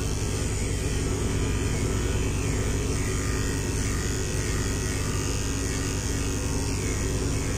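Corded electric pet clipper with a 5FC blade running with a steady hum as it shaves a white Persian cat's coat.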